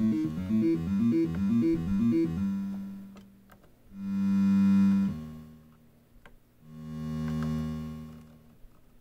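Korg NTS-1 digital synthesizer playing a fast arpeggio of stepping notes for about two seconds, which then stops. Two single held notes follow, each swelling in slowly and fading away, the first the louder. Faint clicks from the keys come between the notes.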